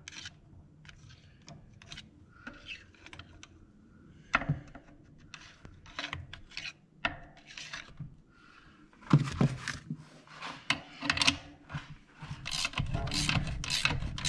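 Light metal clicks and scrapes of bolts and a screwdriver being handled on a steel clutch drum. Near the end, a quick run of clicks from a ratcheting wrench turning a bolt.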